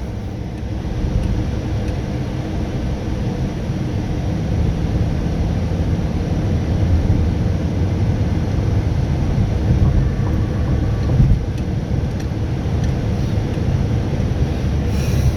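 Car driving at road speed: a steady low rumble of engine and tyres on the road.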